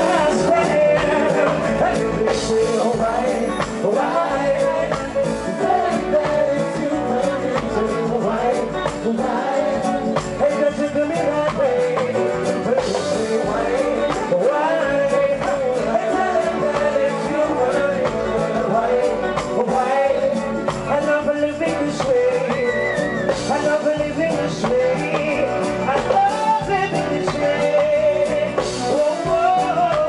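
Live reggae band playing through a PA, with a male lead singer singing over electric guitar, bass guitar, keyboards and drums.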